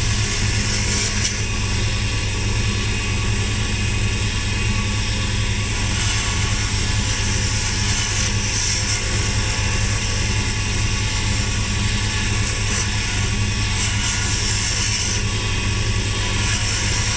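Nearly 30-year-old wood lathe running with a steady hum while a chisel cuts a spinning wooden pen blank, the cutting adding a hiss that comes and goes with each pass.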